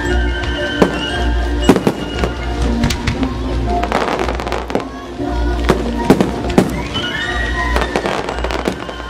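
Display fireworks going off: a string of sharp bangs, with a dense spell of crackling about four seconds in, over loud music with sustained notes.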